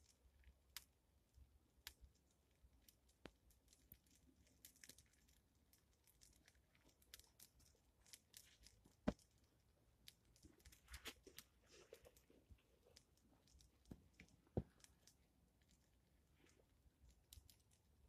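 Small fire of dry twigs and kindling just catching, crackling faintly with scattered pops and two sharper snaps, one about nine seconds in and one about fourteen and a half seconds in.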